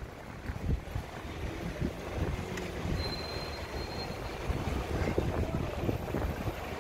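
Wind gusting irregularly on the microphone over background street traffic.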